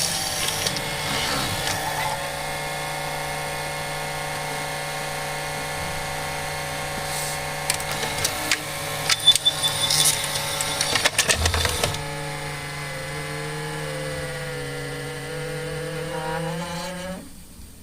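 Head drum of a Panasonic HD100 video recorder spinning with a steady hum, with abnormal noise from the drum. A run of clicks and scraping comes in about halfway through. Near the end the pitch shifts and the sound stops as the drum winds down.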